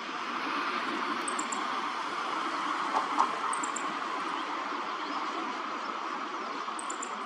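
A small bird's very high, short chirps in quick clusters of three or four, repeated about every two and a half seconds, over a steady rushing background like distant road traffic. Two brief knocks about three seconds in.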